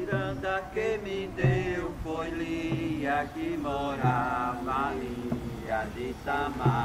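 Voices singing a slow, chant-like song, with a short low thud keeping the beat about every 1.3 seconds.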